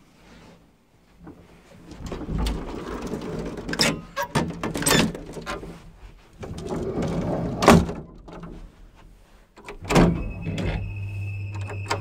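Collapsible metal lattice gates of an old gated lift being drawn shut, rattling and clanking, with a loud clang as they close about ten seconds in. Then a steady low hum and a thin high whine set in as the lift machinery starts.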